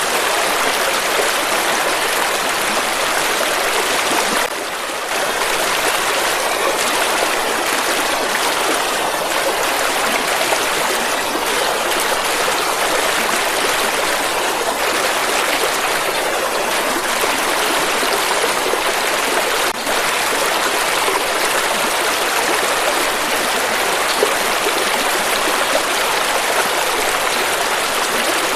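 River water flowing steadily, with a short dip in level about four seconds in.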